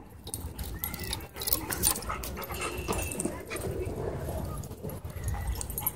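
Several dogs playing together at close range, with short, irregular dog sounds and scuffling.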